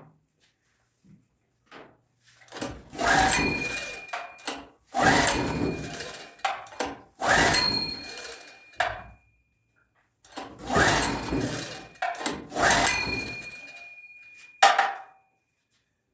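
Small gasoline generator's recoil starter pulled about five times, each pull a rasping whir that fades away. The engine cranks but does not catch, here because fuel is not reaching the carburetor.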